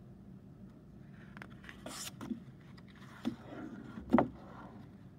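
A book's pages being turned and handled: paper rustling and scraping with a few light knocks, the loudest a sharp knock about four seconds in.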